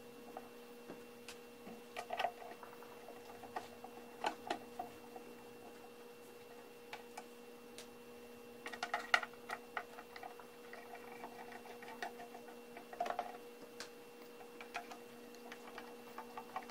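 Scattered light clicks and taps of a screwdriver and hands on a spot welder's sheet-metal case as its cover screws are worked, coming in irregular clusters over a faint steady hum.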